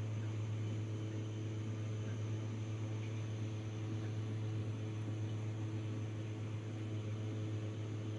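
Steady low electrical hum with a faint hiss over it, unchanging.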